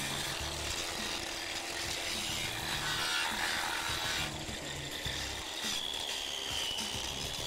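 A 9-inch angle grinder with a carborundum blade grinds down the sharp edge of a concrete slab, rounding it off. Its motor gives a steady high whine over the rasp of the blade on concrete. The whine changes about four seconds in and dips slightly in pitch as the blade bears in.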